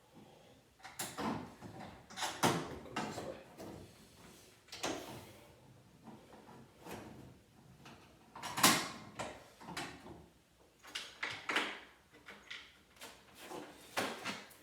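Irregular knocks, clunks and clatters of things being handled, about a dozen of them with quiet gaps between; the loudest comes about eight and a half seconds in.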